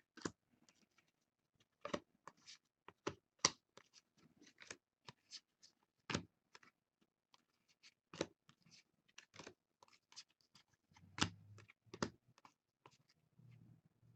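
Baseball trading cards being sorted by hand: quiet, irregular flicks and snaps of card stock sliding off a stack and tapping against other cards, roughly two a second.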